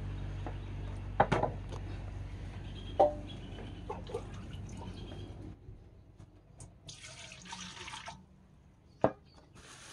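Kitchen handling sounds while raw chicken is being seasoned: sharp knocks of utensils or a bowl, loudest about a second in, and a short splash of liquid about seven seconds in, over a low steady hum that stops just past halfway.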